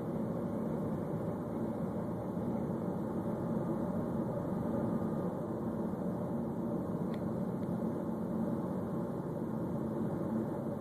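A 2013 Ford Focus running, a steady low rumbling noise with no clear rhythm, and one faint click about seven seconds in.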